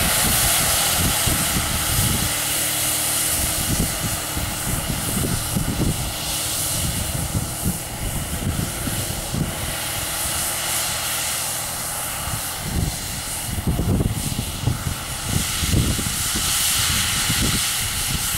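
Tractor-mounted 200-litre air-blast orchard sprayer running: its large axial fan blows a steady rush of air and mist over the tractor's engine, with irregular low buffeting throughout.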